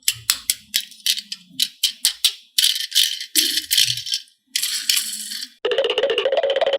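Rattling in quick, uneven clicks and short shakes, then from about two-thirds in a fast, even buzzing rattle that stops abruptly.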